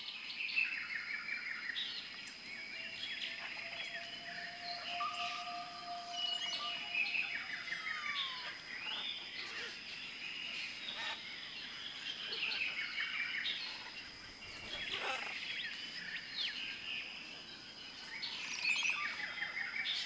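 Many birds chirping and calling at once, a dense birdsong ambience of short chirps and quick whistled glides, over a steady high-pitched tone.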